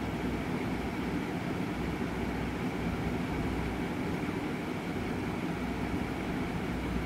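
Passenger train coaches passing over a level crossing: a steady, continuous rumble of the wheels on the rails.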